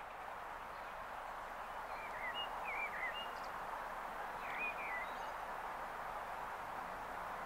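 Steady outdoor background hiss with a few short, wavering bird chirps, a cluster about two to three seconds in and another around four and a half seconds.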